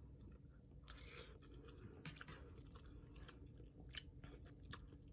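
A person faintly chewing a mouthful of instant ramen noodles, with scattered small wet mouth clicks and smacks.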